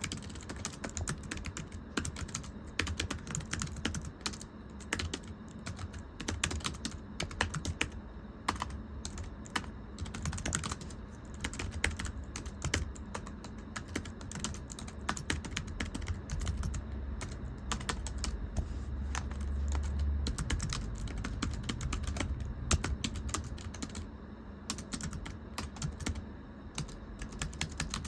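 Fast, continuous typing on a thin, low-profile computer keyboard: quick, irregular, light tapping keystrokes that the typist calls "pechi-pechi" (light slapping). A low rumble sits underneath for several seconds past the middle.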